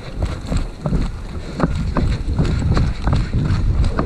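Footsteps on a dirt and leaf-litter forest floor, with irregular thuds and rustles, over a steady low rumble of wind buffeting the camera microphone.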